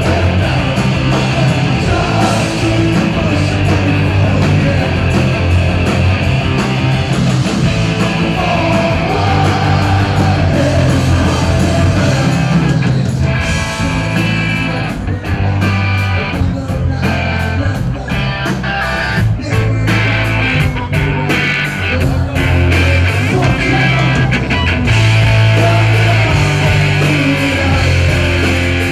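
Live rock band playing loud: electric guitar, bass and drums with a man singing. A choppy, stop-start stretch runs through the middle.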